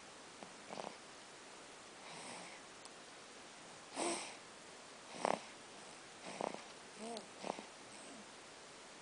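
A sleeping pet dreaming: short, irregular sniffs and wheezy breaths, with a brief high squeak that rises and falls about seven seconds in. Faint throughout.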